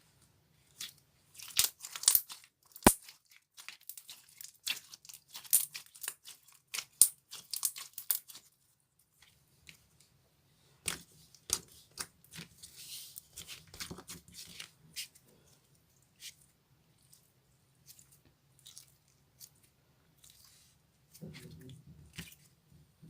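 Thick, chewy clear slime worked by hand, giving sharp crackling clicks and pops in two busy stretches with a short lull between them, thinning out near the end.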